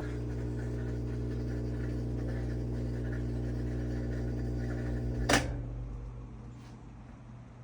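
Whirlpool/Maytag top-load washer's drive motor running with a steady hum, then a sharp click about five seconds in, after which the running winds down and fades.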